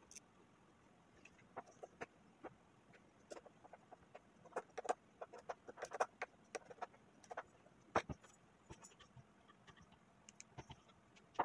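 Irregular small clicks, taps and scrapes of a metal Zama C1U-K78 carburetor being handled and screwed together with a small screwdriver, with a firmer knock about 8 seconds in and a sharp one at the very end.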